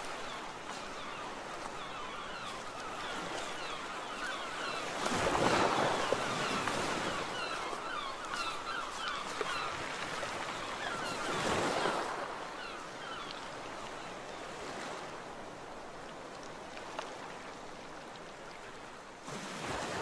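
Sea waves washing onto a shore, a steady rush of surf that swells as a wave breaks about five seconds in and again near the middle.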